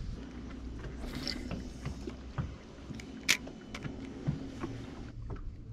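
A steady low hum from a bass boat's motor, with scattered light clicks and knocks and one sharper click about three seconds in.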